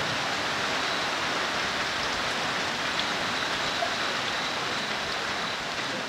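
Steady rain falling, an even hiss with no breaks.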